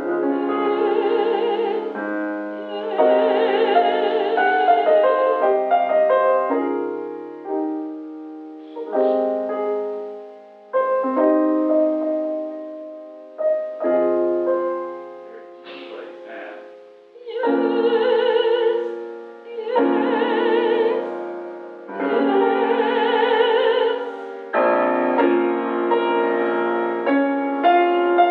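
A female classical singer sings with a wide vibrato over grand piano accompaniment. Her sung phrases alternate with short passages where the piano plays alone.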